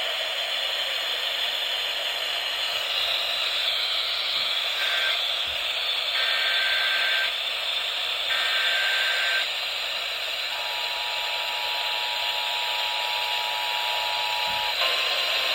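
Weather radio receiving a new Emergency Alert System alert through heavy static hiss. From about five seconds in come three short bursts of digital SAME header tones, then the two-tone EAS attention signal held steadily for about four seconds. Near the end a single steady alert tone begins.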